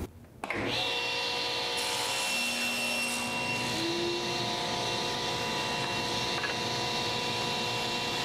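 Table saw running at steady speed, the motor and spinning blade giving a steady whine with several fixed tones over a noisy hiss. It starts about half a second in.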